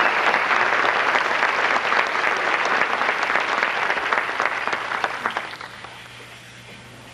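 Audience applauding in a theatre, the clapping dying away about six seconds in.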